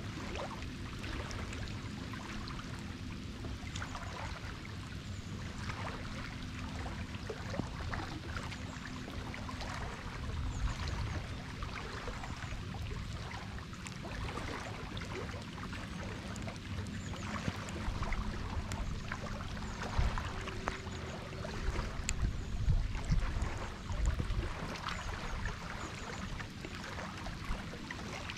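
Rain falling on open water, a steady hiss with many small pattering drops and splashes. Low rumbles swell up about ten seconds in and again from about eighteen to twenty-four seconds.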